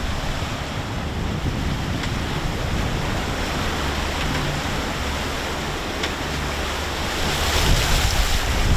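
Wind buffeting the microphone over the rush of sea water along a sailboat under way in a large swell, growing louder near the end.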